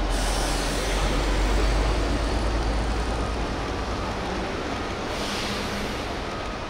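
Traffic noise at a roadside: a steady wash with a low vehicle rumble that eases after the first few seconds, and a hiss that swells and dies away about five seconds in, like a vehicle passing.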